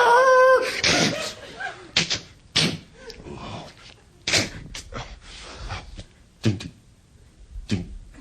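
A man's voice imitating an ambulance siren with a wavering pitch, cutting off about half a second in. It is followed by a string of short, sharp vocal sound effects, about seven in all, like slams and thuds.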